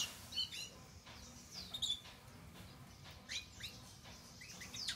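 Young brown-plumaged male curió (chestnut-bellied seed finch) giving short falling chirps in loose clusters: scattered early notes of a bird just past its nest moult, not yet full song.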